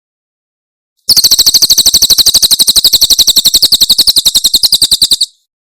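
Cililin bird singing its 'tembakan' song: a loud, fast, even rattle of high notes, about eleven a second, starting about a second in and stopping abruptly about four seconds later.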